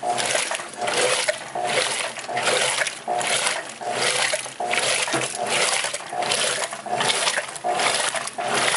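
Electrolux LTE09 top-load washing machine agitating: the single-action agitator swings back and forth, sloshing water in the tub in an even rhythm of about two surges a second.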